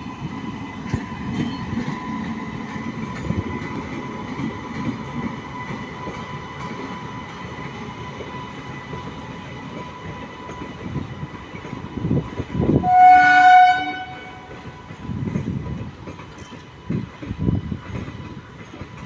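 Indian Railways WAP7 electric locomotive passing with its train, a steady rumble carrying a thin high whine. About 13 s in, one loud horn blast lasting about a second. After it comes the rhythmic clatter of the coach wheels over the rail joints.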